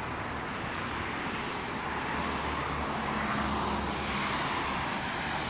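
Street traffic noise: a passing vehicle, its tyre and engine noise swelling to a peak a little after the middle and easing off.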